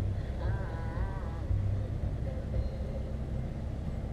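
Low, steady vehicle engine rumble, with a faint wavering tone from about half a second to a second and a half in.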